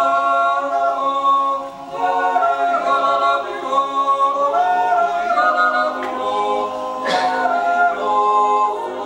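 Small men's Swiss yodel choir singing a cappella in close harmony, holding sustained chords that shift several times.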